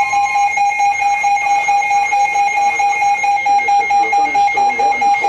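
Emergency alert attention tone, a loud steady alarm tone played over the radio ahead of a severe thunderstorm warning. A fainter second tone drops out about half a second in.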